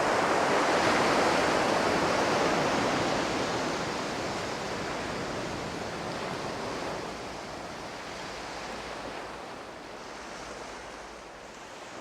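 Steady rushing sound of ocean surf that fades in, then slowly dies away.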